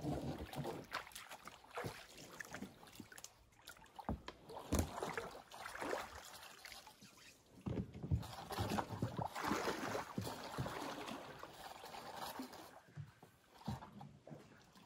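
Canoe being pushed off into shallow river water and paddled away: irregular knocks of paddles against the hull and splashing and sloshing of water, busiest about halfway through.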